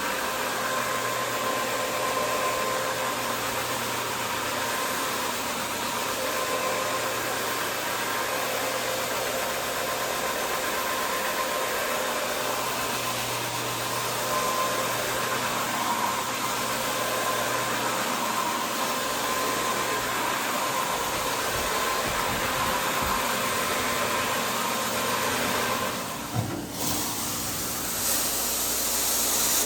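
Carpet-cleaning machine running steadily, a motor whine over a rush of air. The sound shifts about 26 seconds in, dips briefly, then turns to a brighter hiss near the end.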